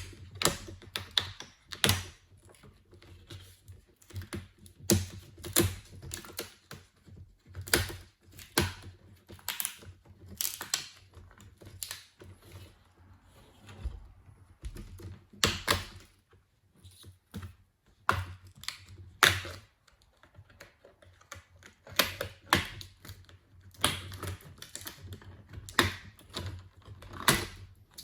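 Plastic screen bezel of a Lenovo Legion Y520 laptop being pried off around its edge, its snap clips clicking and popping loose in irregular sharp clicks, with a few louder snaps.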